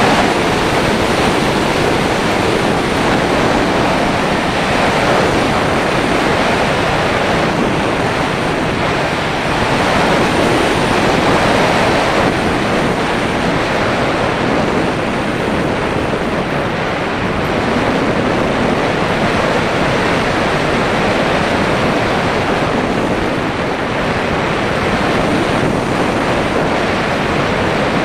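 Steady rushing of airflow over a nose-mounted action camera on an unpowered radio-controlled slope glider in flight, heard as wind noise on the microphone, gently swelling and easing with no motor sound.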